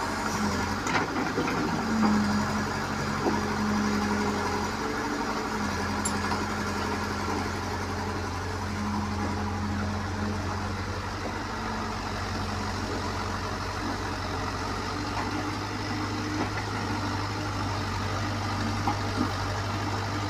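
Small crawler excavator's diesel engine running steadily, its note swelling at times under hydraulic load as it digs and swings bucketloads of mud, with a few knocks near the start.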